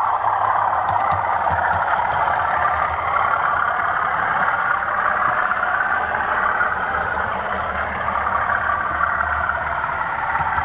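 Model railway train running along the layout's track: a steady whirr and rumble of the motor and wheels on the rails.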